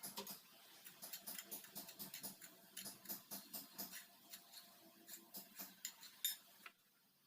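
A metal utensil clicking rapidly and irregularly against a bowl, as in mixing or beating by hand, stopping shortly before the end.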